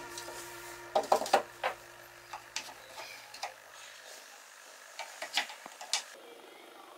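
Wooden legs and slats of a folding pallet-wood beach chair clacking and knocking against each other as the chair is folded flat by hand: a cluster of sharp clacks about a second in, a few light taps, then another cluster near the end.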